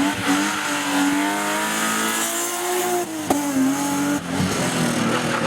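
BMW E30 rally car engine held at high revs under hard driving, its pitch fairly steady with slight rises and falls. A sharp crack comes about three seconds in, and the revs dip briefly after it.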